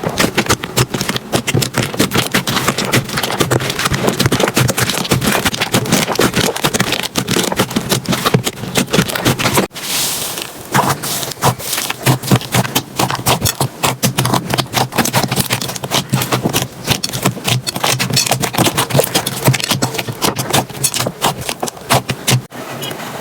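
Slime being squished and pressed by hand: a dense stream of rapid sticky clicks, pops and crackles. The sound breaks off and changes to another handling about ten seconds in, and again near the end.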